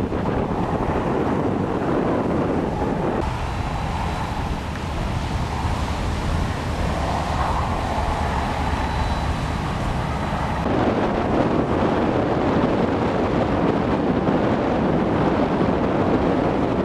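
Wind buffeting the microphone over the rush of water around a boat under way. The noise changes abruptly twice, at about three and eleven seconds in.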